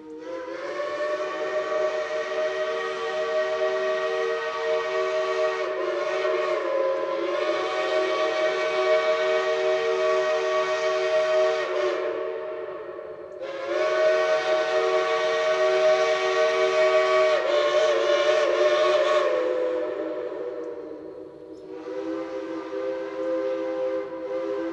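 Multi-note chime steam whistle sounding three long blasts. The first lasts about twelve seconds, the second about seven, and the third begins near the end. Its notes waver and slur briefly partway through the first two blasts.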